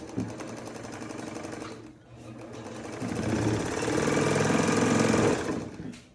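Vintage Japanese Modern Home all-metal sewing machine running on its replaced belt, a fast even clatter of the needle mechanism. It eases off briefly about two seconds in, then runs up faster and louder and stops near the end.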